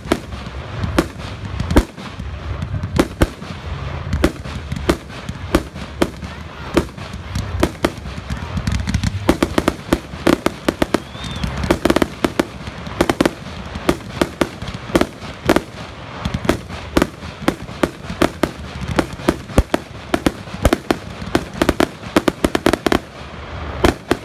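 Professional fireworks display going off: a continuous run of sharp bangs, several a second, thickening into dense volleys about halfway through and again near the end.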